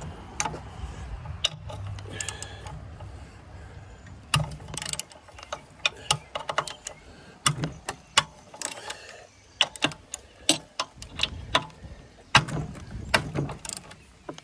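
Socket ratchet clicking in short runs on the back-swings as the cylinder head bolts of a Wisconsin engine are worked loose.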